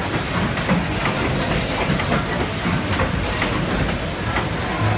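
Citrus packing-line machinery running: a steady mechanical clatter full of small irregular knocks and rattles, with a hiss.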